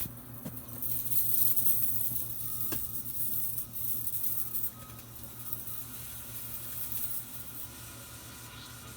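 Microwave oven running with a steady low hum while halved grapes inside sizzle and crackle with small electrical sparks, with one sharp click about three seconds in.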